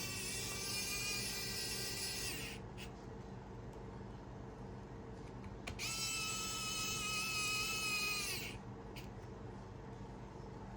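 Electric precision screwdriver driving small screws into a phone, running twice for about three seconds each with a steady high whine.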